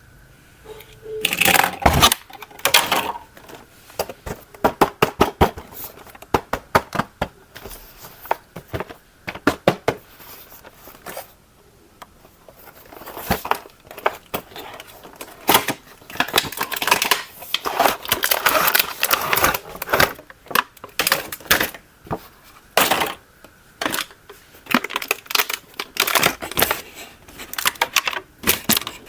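Irregular run of sharp plastic clicks, taps and short clattering bursts, as hands handle a plastic toy and its packaging.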